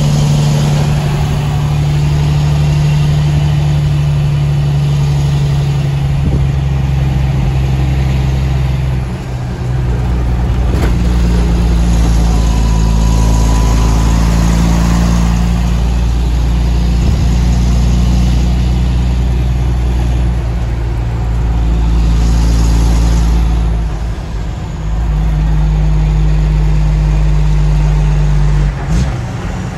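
Heavy truck's diesel engine heard from inside the cab, pulling uphill with a steady low drone that dips briefly a few times.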